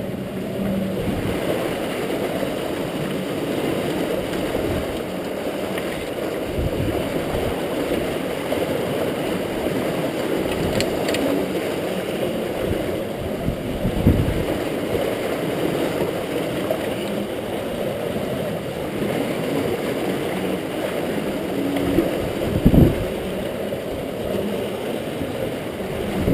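River water rushing and gurgling around and through a rotary screw fish trap: a steady low rush, with a couple of dull knocks, one about halfway through and one near the end.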